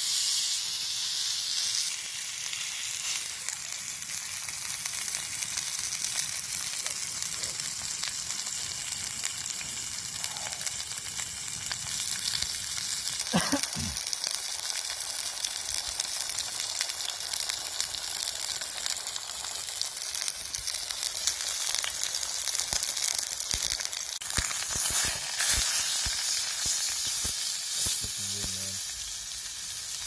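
Steak searing in a hot cast iron skillet: steady, crackling sizzle, with one short knock about halfway through.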